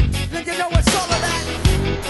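Background music with a heavy drum beat and a sung or rapped vocal line.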